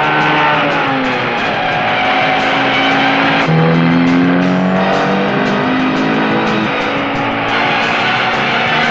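Alfa Romeo cars' engines revving hard at speed in a film chase, the pitch rising and falling as they change gear, mixed with film score music.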